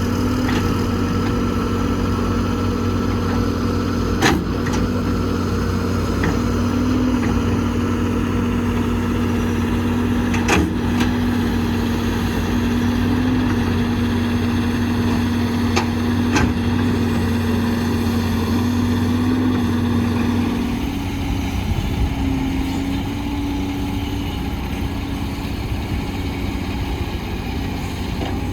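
Heavy construction machine's diesel engine running steadily, with a few sharp metallic knocks. About 20 seconds in the engine note drops and the sound gets quieter.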